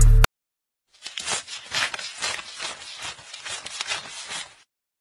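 Irregular crackly rustling of paper banknotes being handled in a hand, on and off for about three and a half seconds.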